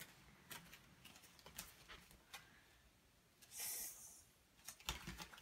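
Faint rustling of a Pokémon card booster pack's foil wrapper being handled, with a short crinkle of the foil about three and a half seconds in as the pack is pulled at to open it.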